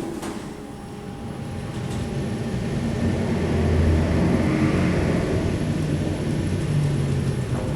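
Large KONE EcoDisc passenger lift travelling between floors: a steady low hum and ride rumble that swells to its loudest about halfway and eases off near the end.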